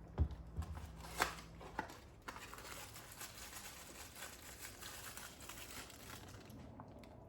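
Kitchen handling noises: a few sharp knocks in the first two seconds, then a steady crinkly rustle lasting several seconds.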